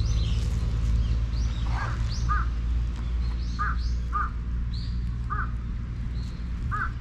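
Birds calling outdoors: short, arched calls repeated several times, a second or so apart, with higher thin chirps in between, over a steady low rumble.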